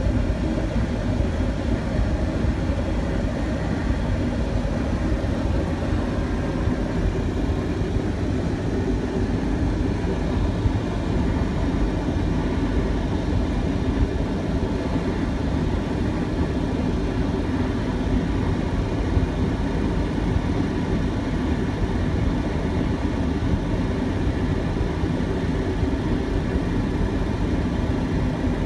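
Steady flight-deck noise of a Boeing 737-700 in flight on approach: a constant rushing drone with a low hum, unchanging throughout.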